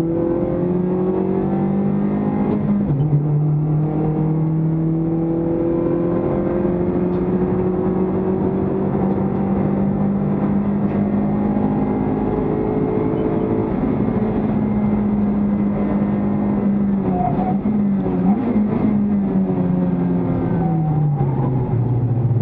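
Toyota Vios Cup race car's four-cylinder engine heard from inside the stripped, caged cabin, pulling hard under acceleration with road noise. Its pitch drops at an upshift about three seconds in, then climbs slowly for about ten seconds, and falls away near the end as the car slows for a corner.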